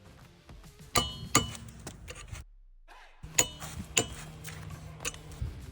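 Metal tools clinking: a handful of sharp, ringing clinks as sockets and an adapter are handled, with a faint steady hum under the second half.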